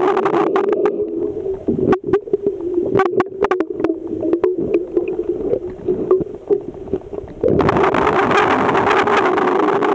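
Muffled sound picked up underwater in a swimming pool: a steady low hum with a rushing noise at the start, then scattered sharp clicks and knocks. The rushing noise returns about seven and a half seconds in.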